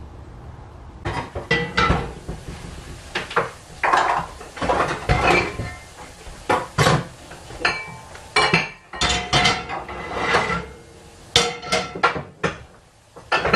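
Cast iron skillets clanking against the grates of a gas stove as they are set down and shifted into place. It is a run of sharp, irregular metal knocks with a brief ring, starting about a second in.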